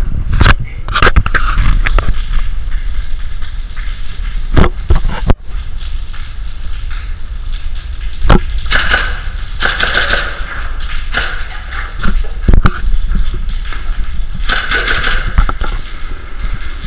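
Close scuffing and rustling of an airsoft player's clothing and gear as he moves through the debris-strewn building, broken by about six sharp knocks or clicks.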